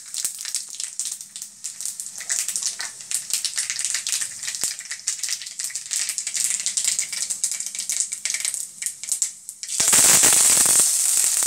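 Mustard and cumin seeds crackling and popping in hot oil in a kadhai, a rapid irregular patter of small pops over a hiss. Near the end curry leaves go into the oil and it bursts into a much louder sizzle.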